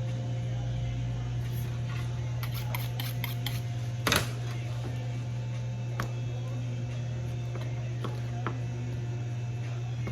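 Knife clicking and tapping on a cutting board as broiler chickens are cut into parts, with a sharp knock about four seconds in, over a steady low hum.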